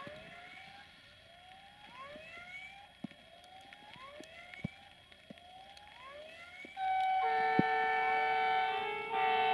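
Level-crossing warning signal sounding a repeated rising electronic tone, about one and a half a second. About seven seconds in, the approaching train's horn blows a loud steady chord, breaks off briefly, then blows again.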